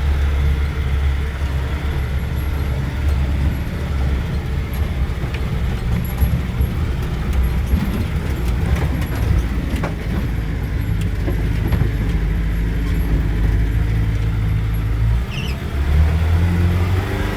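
Off-road vehicle engine running steadily with a low drone, its pitch shifting about fifteen seconds in, with a few short knocks and rattles along the way.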